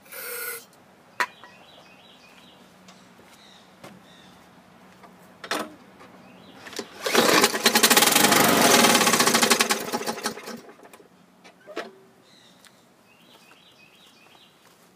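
Brief hiss of aerosol starting fluid sprayed into the mower's intake. About seven seconds in, the Bolens mower's Briggs & Stratton engine fires and runs loudly for about four seconds, then winds down and stops, running only on the starting fluid because of a carburettor problem. The owner calls it a little noisy and suspects a bent blade causing vibration.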